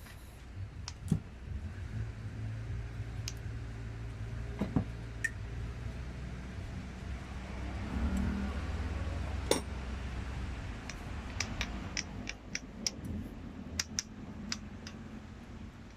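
Scattered light clicks and clinks of metal tools and parts handled on a workbench, coming more often in the second half, over a low steady rumble.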